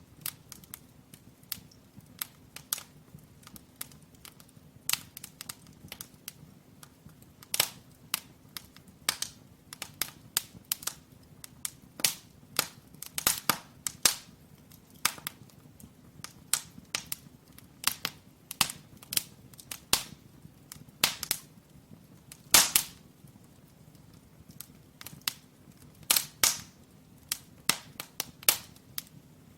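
Firewood crackling and popping as it burns in an open brick fireplace: irregular sharp snaps a few times a second, a handful of them louder, over a faint low hum.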